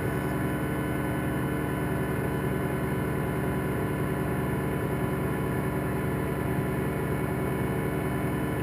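Steady machine hum, unchanging, with no other sound over it.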